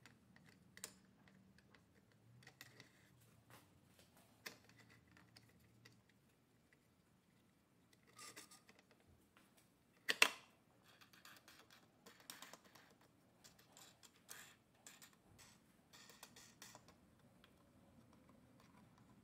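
Scattered faint clicks and knocks from an aspen board being set on a small CNC router's bed and handled under its wing-nut clamps. The loudest knock comes about ten seconds in, followed by a run of small clicks.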